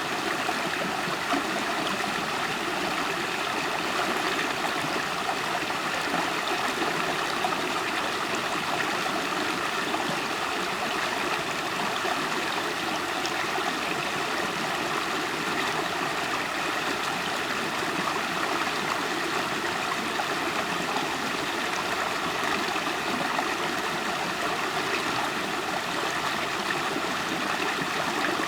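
River water flowing and gurgling over stones in a steady, unbroken rush.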